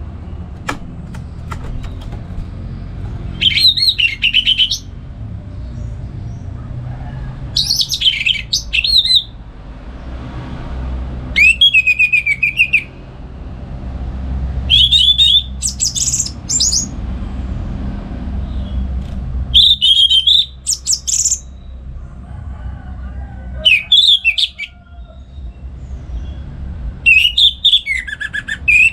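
Orange-headed thrush (anis merah) singing loud, varied song phrases, one about every three to four seconds, over a low steady rumble.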